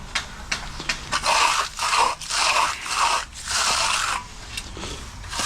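A hand finishing tool scraping across fresh concrete in a run of about five quick strokes, one to four seconds in, with lighter scraping before and after.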